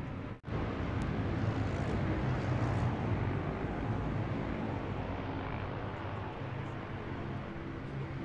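Egli Kawasaki 1000's air-cooled inline-four engine idling steadily, with a brief dropout just after the start.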